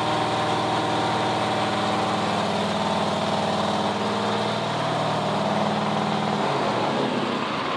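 Zero-turn mower's 22-horsepower engine idling steadily, then dying away about six and a half seconds in. The owner takes the cut-out for the seat safety switch stopping the engine with nobody in the seat.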